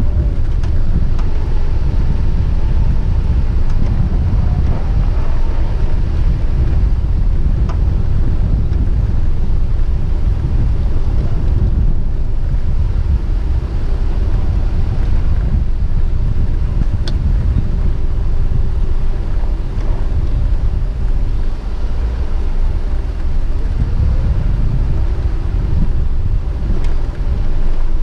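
Loud, steady rumble of wind buffeting the microphone, with a faint steady hum underneath.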